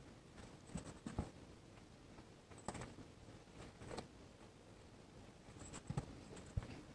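Faint scratching and soft ticks of an embroidery needle and stranded floss being drawn through and under taut cotton fabric, with fingertips brushing the cloth. A few separate scrapes come about a second in, near three and four seconds, and around six seconds.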